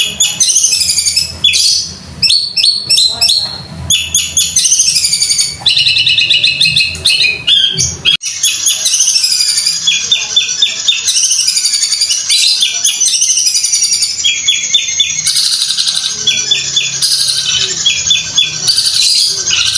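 Long-tailed shrike (Madura cendet) singing continuously: a fast, varied run of high whistled and chattering phrases, broken by bursts of rapid, evenly repeated rattling notes likened to a sewing machine.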